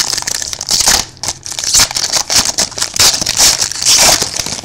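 Trading-card pack wrapper crinkling and tearing as a pack of football cards is opened, in a quick run of sharp rustles.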